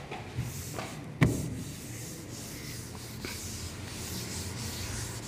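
A hand rubbing across the surface of an interactive display board as it wipes it clean, a soft steady rubbing hiss. There is a sharp tap about a second in and a fainter one near the middle.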